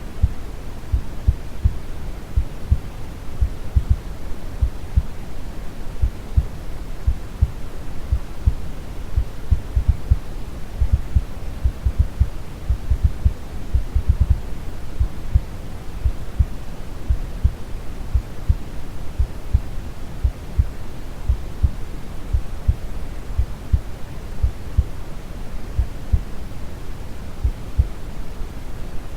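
Steady brown noise, a low rumbling hiss, with a calm heartbeat thumping evenly and low underneath, played as a sleep sound for babies.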